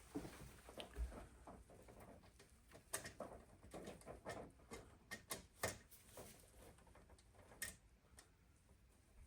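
Faint, irregular clicks and light taps of small hardware being handled: screws and plastic spacers being fitted to a circuit board's mounting plate.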